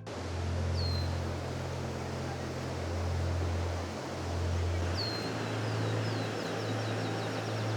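A small songbird calls over a steady rushing background with a low rumble: a thin falling whistle about a second in, then a second whistle about five seconds in that runs into a quick trill of about five notes a second.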